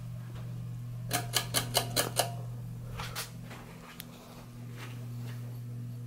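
Beverly Hills Fan Co. Trout ceiling fan running, its motor giving a steady low hum. About a second in there is a quick run of about six sharp, slightly ringing clicks, and a few fainter clicks follow shortly after.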